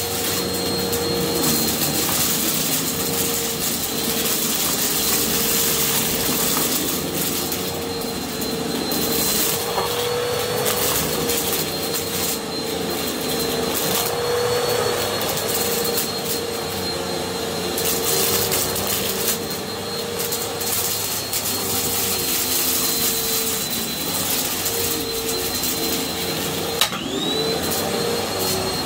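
Bissell upright vacuum cleaner running steadily with a high motor whine, its brush roll sucking up shredded paper from carpet. Near the end there is a sharp click, and the whine dips briefly and climbs back up.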